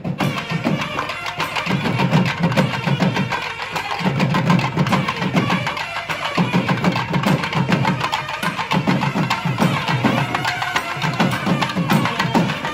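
A group of thavil drums played together, a fast, dense rhythm of sharp stick and hand strokes over deep drumhead tones, in phrases with short dips every couple of seconds.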